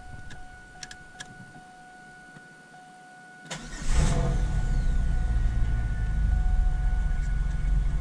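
A few light clicks, then about three and a half seconds in a Camaro's 3.8-litre V6 is cranked, catches at once and idles steadily. It is a short start to push fluid through the freshly refilled power steering pump and rack.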